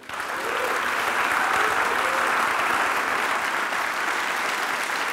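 A large audience applauding: clapping that starts abruptly and holds steady.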